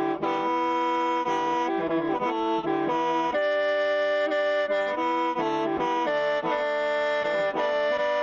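Hmong qeej (khèn Mông), a bamboo free-reed mouth organ, playing a continuous tune: several reed tones sound together as a chord, and the notes shift every half second or so.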